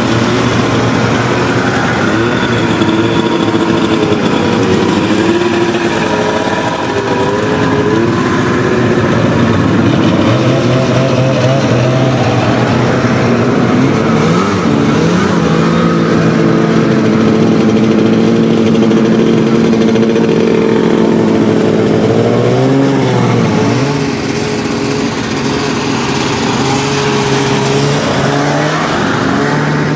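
Several vintage two-stroke snowmobile engines running at once, holding steady revs that step up and down as the sleds pull away, with one quick rev about three-quarters of the way through.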